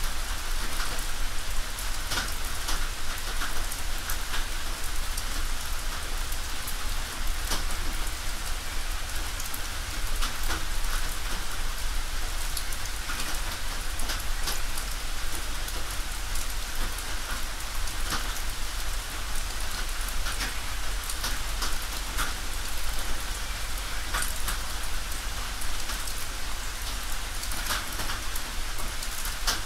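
Rain falling on a tin roof: a steady hiss of rain with many separate drops striking the metal, and a low steady rumble underneath.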